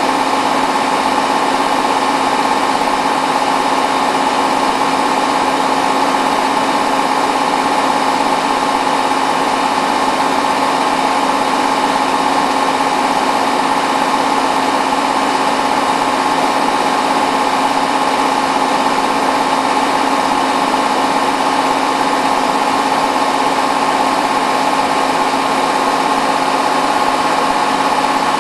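Hotpoint WT960 washing machine in its final 1600 rpm spin, the drum and motor running steadily at high speed with a constant whine.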